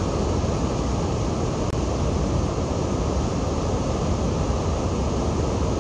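Steady rushing of white-water river rapids, heaviest in the low range, with no breaks or changes.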